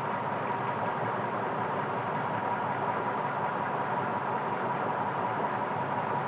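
Electric fan running steadily: an even whirring noise with a faint steady hum on top.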